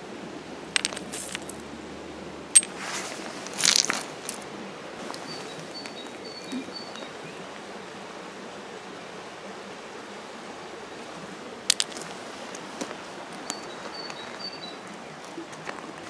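River pebbles clicking and crunching under a hand as small finds are picked out of the gravel: a few sharp clicks and one longer scrape just before four seconds in, over a steady background hiss.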